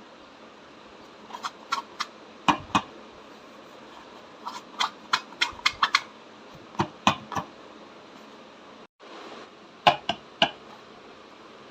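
Slime being squished and pressed, giving irregular clusters of sharp little clicks and pops over a steady hiss.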